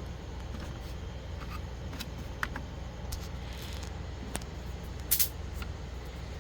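Steady low hum, with a few light clicks and a short louder click-rustle about five seconds in.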